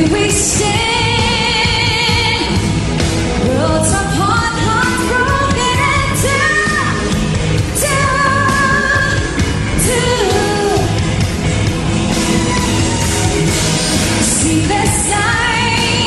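A female pop singer sings live into a microphone over a loud band with a steady drum beat. She holds notes with vibrato and climbs the melody in steps.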